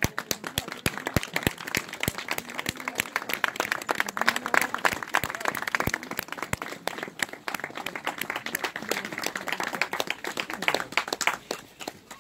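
Crowd applauding: many hands clapping densely, thinning out near the end.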